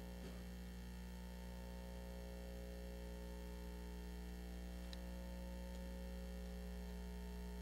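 Steady low electrical mains hum with a stack of even overtones, picked up by the church's microphone and sound system, with no speech over it.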